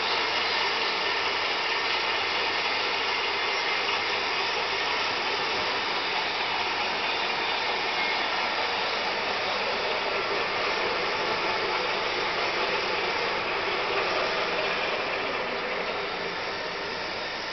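Fertilizer roller granulator running: a steady, loud mechanical noise from its motor and gear-driven rollers, easing slightly near the end.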